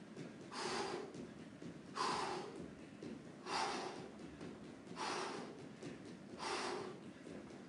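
A man breathing hard from exertion in a boxing round: five heavy breaths, one about every second and a half.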